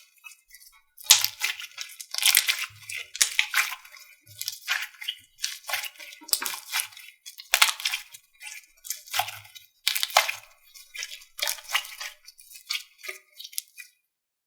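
Slime squeezed and pressed by hand, crackling and popping in repeated bursts every half second or so, stopping just before the end.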